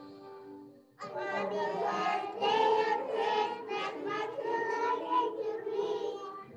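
A group of preschool children singing a song together, coming in loudly about a second in after a few held notes of instrumental music.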